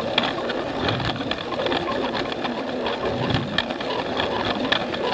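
Battery-powered Plarail toy train running along plastic track: its small motor and gears whir steadily, with many irregular clicks and rattles from the wheels and track.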